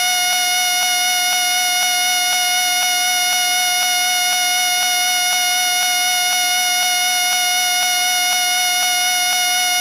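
Whistle blown in one shrill, unbroken tone at a fixed pitch, with a faint pulsing about twice a second.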